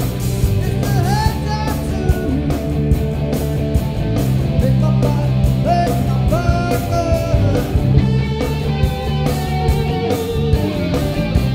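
Rock band playing with overdriven electric guitars, bass guitar and a steady drum beat, a lead guitar line with bent, sliding notes riding over the top.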